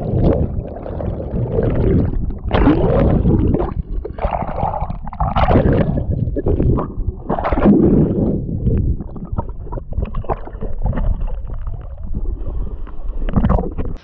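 Water churning and gurgling around a submerged camera, heard muffled with a heavy, deep rumble that comes in irregular surges.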